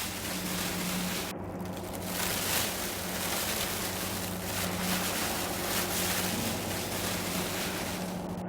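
Steady rushing noise with a low hum underneath; the hiss drops out for about half a second near the start.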